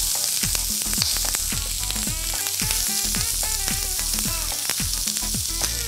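Strips of bell pepper and carrot sizzling steadily in hot olive oil in a frying pan, just after going in to be sautéed.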